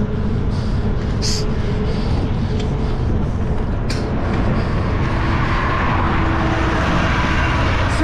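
Wind rumbling on the microphone and road noise while moving along a road, with a van coming up from behind: its engine and tyres grow louder over the second half and it passes close by at the end. Two short clicks come early on.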